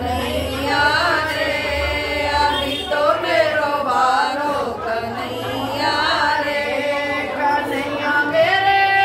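A group of women singing a Hindi devotional bhajan to Krishna together, their voices held and bending in a chant-like melody.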